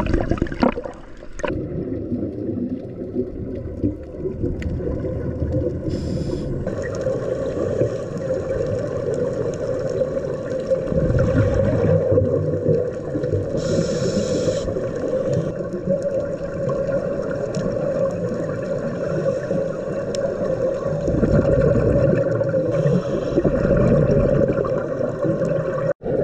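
Underwater sound of scuba diving: churning bubbles from the entry into the water at the start, then recurring rushes of exhaled regulator bubbles over a steady droning hum.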